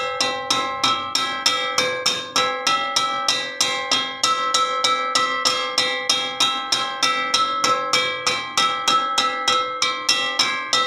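A metal wok struck over and over in a steady rhythm, about three strikes a second. Each hit rings on with several bell-like tones that overlap the next.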